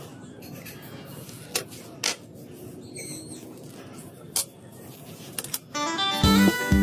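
A few sharp, separate clicks of small metal watch parts and tools being handled over a low hiss, with a brief high ring partway through. Acoustic guitar music starts near the end.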